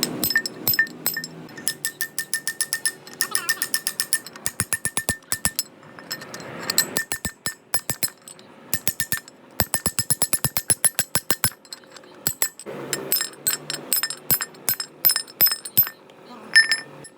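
Hammer striking metal in quick runs of taps, several a second, each hit ringing briefly, with short pauses between the runs.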